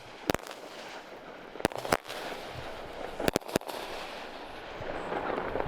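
Firecrackers going off: about six sharp bangs at uneven intervals, one near the start, two close together around the middle and three in quick succession later.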